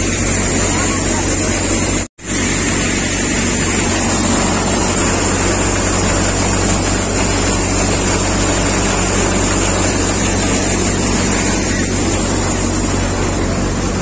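Engine-driven paddy threshing machine running steadily: a constant machine drone with a low hum and a high whine. The sound cuts out for a moment about two seconds in, then resumes unchanged.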